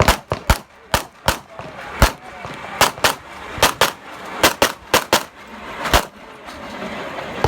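Rapid pistol fire from an STI pistol in .40 S&W: about fifteen sharp shots, mostly in quick pairs and short strings with brief pauses between.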